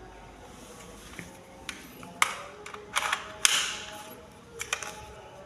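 Spring-powered K117D Beretta toy airsoft pistol being cocked and fired: several sharp mechanical snaps and clacks, the loudest about two and three and a half seconds in.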